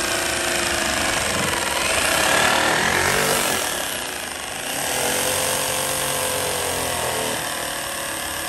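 Handheld jigsaw cutting through a half-inch expanded PVC sheet, the reciprocating blade chattering steadily through the board while the motor's pitch wavers with the load of the cut.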